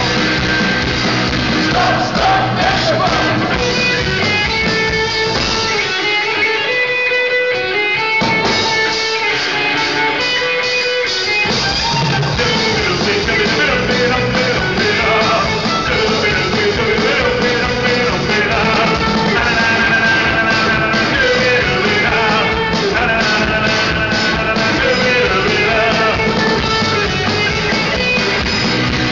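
Punk rock band playing live, with a lead singer over electric guitar, bass and drums. About six seconds in, the low end of the band drops out for a few seconds, and the full band comes back in at about eleven seconds.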